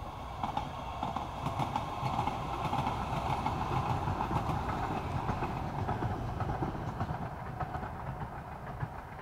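Two-car Metro Gold Line light rail train passing by, its wheels clicking sharply over the rails. The sound swells to its loudest mid-way and fades as the train moves off.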